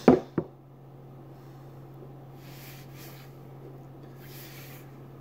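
Two sharp knocks close together as an aluminium beer can is set down on a wooden tabletop, followed by a couple of soft breaths through the nose.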